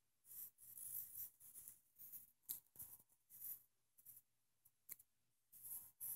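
Faint pencil scratching on paper as a signature is written, in short, irregular strokes.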